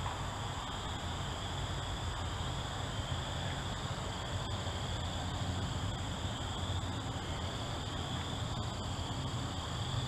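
Steady outdoor background: a low wind rumble on the microphone with a constant high hiss, and a few faint ticks. Soldering the wires makes no distinct sound of its own.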